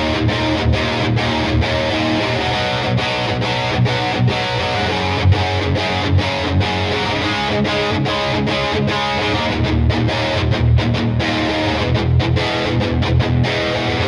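Lavish CMRL-FL electric guitar played with a distorted tone: a riff broken by many brief, rhythmic stops.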